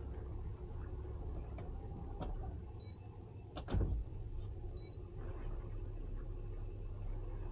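Boat engine idling with a steady low rumble, and a single sharp knock about halfway through.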